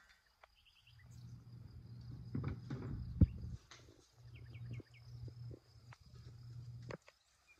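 Light clicks and knocks of kitchen handling, a steel bowl and utensils, with one sharp knock about three seconds in, over a steady high insect trill from crickets and a low rumble that comes and goes.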